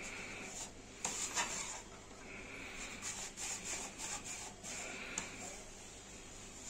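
Boilie rolling table being worked back and forth over carp-bait dough, its plates rubbing and scraping as the paste is cut into balls. The scraping comes in bursts about a second in and again from about three to five seconds in, with a sharp click just after five seconds.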